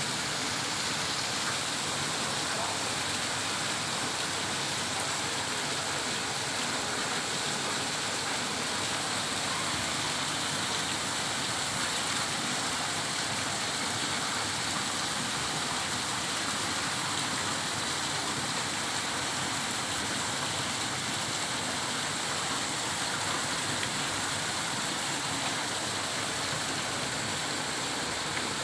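Heavy rain falling, a steady, even hiss that holds constant throughout.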